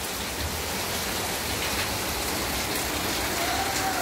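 Heavy, steady rain: an even hiss with scattered drop sounds.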